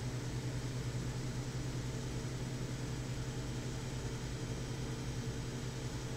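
Heavy vehicle engine idling steadily, an even low hum.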